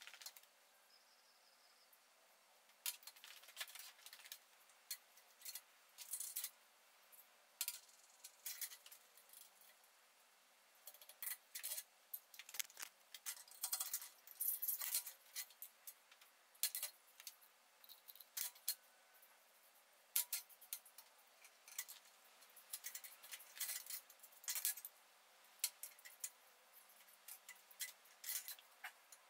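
Steel hand tools and 3 mm steel plate handled on a steel workbench while the plate is marked out: scattered light metallic clinks, taps and scrapes, coming in small clusters.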